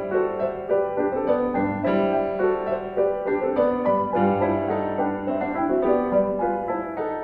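Background piano music: a steady run of notes over sustained lower chords.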